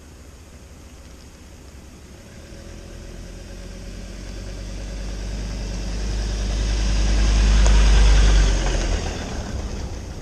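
A four-wheel-drive ute drives along a dirt road and past, its engine and tyres on the dirt growing steadily louder to a peak about eight seconds in, then falling away quickly as it goes by.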